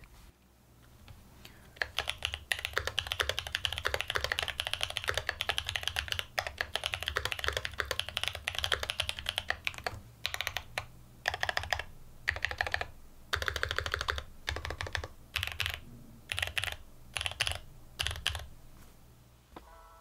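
Mode Eighty tenkeyless mechanical keyboard (stack-mounted, FR4 plate, plate foam) being typed on: a quiet start, then a steady run of rapid keystrokes from about two seconds in, breaking into shorter runs with brief pauses in the second half.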